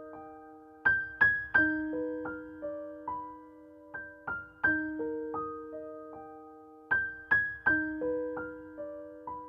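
Soft solo piano music: slow broken chords played one note at a time, each note ringing and fading away. A phrase of louder notes comes round about every six seconds.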